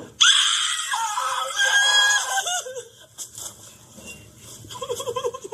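A cartoon character's long, shrill scream, wavering in pitch. Near the end it gives way to short, rapid sobs, about five a second.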